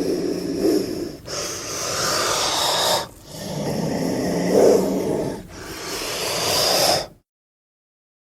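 Snake hissing, four long breathy hisses in a row of about two seconds each, then a sudden cut to silence about seven seconds in.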